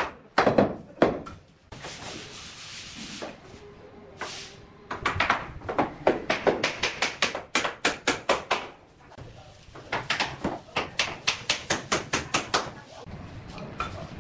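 Runs of sharp wooden knocks, about three a second, as bamboo tongue-and-groove floor planks are hammered tight against each other. About two seconds in there is a short scraping rustle of a plank sliding over the foam underlay.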